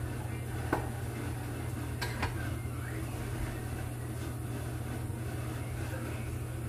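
Light clicks and knocks of dishes and utensils as chopped leafy greens are handled in a glass bowl: one a little under a second in and two close together around two seconds in, over a steady low kitchen hum.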